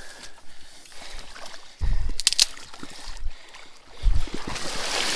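Wading steps through shallow marsh water among dry reeds: sloshing and splashing, with two heavier steps about two seconds in and about four seconds in, and a brief crackle of dry stalks with the first of them.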